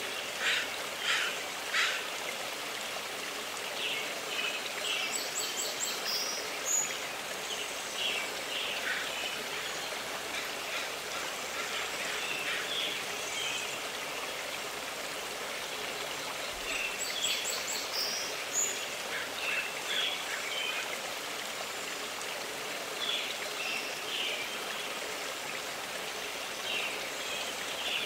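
A stream runs steadily, with songbirds chirping on and off over it, including a few short, very high trills.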